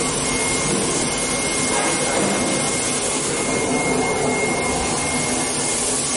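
High-speed tape slitting and rewinding machine running, slitting a wide roll of paper tape into narrow rolls: a steady mechanical drone with a thin, steady high whine over it.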